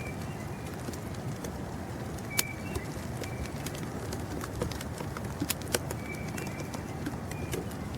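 A few short, high bird chirps over a steady rush of blizzard wind, with scattered sharp ticks throughout.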